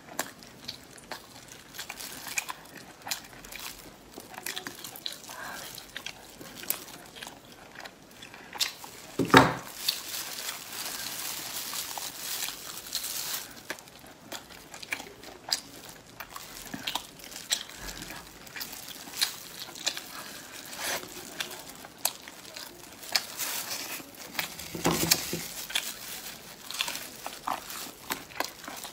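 Close-up eating of spiced ribs: wet chewing, biting and tearing of meat off the bone, with many small mouth clicks and the crinkle of plastic food gloves. A single loud thump about nine seconds in, and a softer one near the end.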